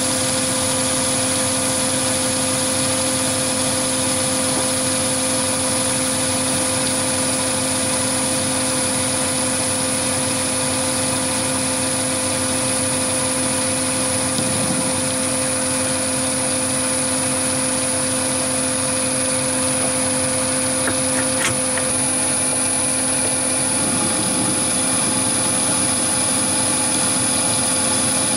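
Chinese mini lathe running steadily while its tool takes a cut along a long taper on a steel workpiece, the compound slide fed by a small geared DC motor. A steady hum with a constant high whine.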